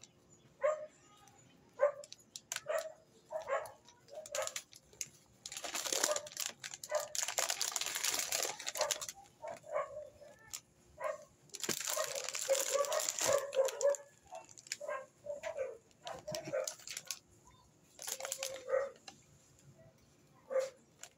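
Plastic snack and coffee packets crinkling as they are handled, in two long spells, with a pet's short yelps repeating every second or so throughout.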